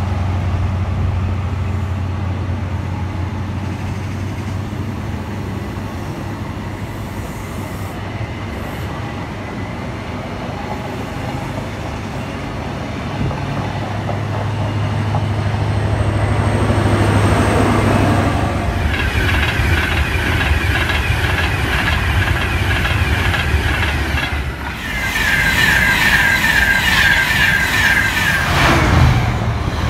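CrossCountry InterCity 125 (HST) passing at speed through a station: a steady low diesel hum and rail noise as the power car and coaches go by. About two-thirds of the way in the sound changes to a busier, rhythmic clatter of train wheels over rail joints, and another passenger train passes close by near the end.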